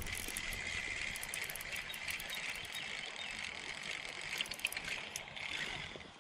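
Spinning reel being cranked steadily, its gears whirring with fine clicking as line is wound in. It starts abruptly and eases off near the end.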